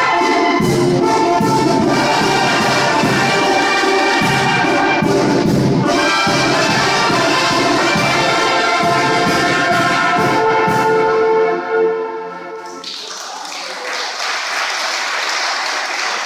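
Oaxacan brass band of trumpets, trombones, saxophones and tuba, with a bass drum beating time, plays a piece to its end on a held final chord about eleven seconds in. Clapping follows.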